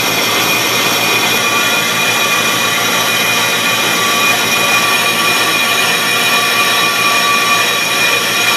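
Bench brake lathe turning a Chevy Silverado 2500 HD front brake rotor while its cutting bits shave the braking surfaces. The motor runs steadily under a ringing squeal of several high tones that holds unchanged throughout.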